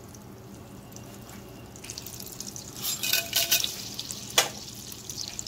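Butter and oil sizzling gently in a stainless steel pot. About three seconds in, whole spices (bay leaves, cinnamon sticks, cardamom pods, cloves, black peppercorns) go into the hot fat with a burst of louder crackling, followed by a single sharp knock.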